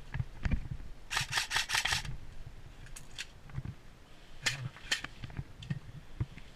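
Airsoft electric gun firing a quick burst of about seven shots about a second in, followed by a few single snapping shots. Dull knocks of movement and handling run underneath.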